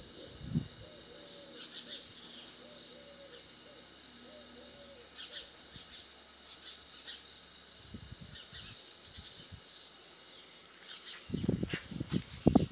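Outdoor bird calls: one bird giving short, repeated low calls for the first few seconds while small birds chirp, over a steady high insect drone. A cluster of louder sharp knocks or rustles comes near the end.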